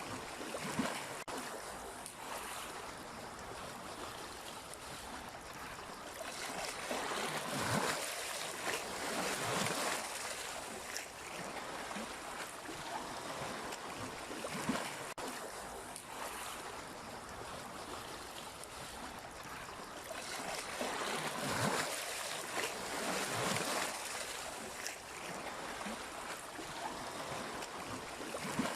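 Sea waves washing in against the shore: a steady rush of water with louder surges every several seconds as waves break and splash.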